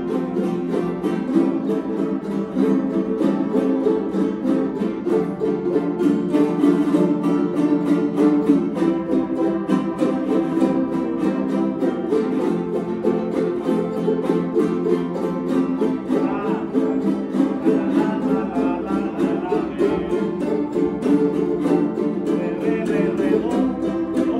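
Several jaranas jarochas, small Mexican eight-string guitars, strummed together in a steady, fast son jarocho rhythm.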